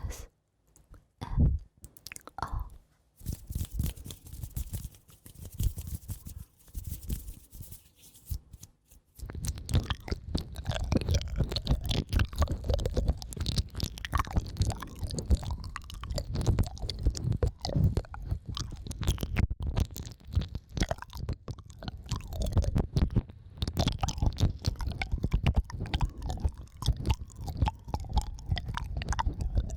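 Close-miked ASMR trigger sounds: sparse clicks and a soft hiss, then from about nine seconds in a dense, continuous crackling of wet, chewing-like clicks, heavy in the low end.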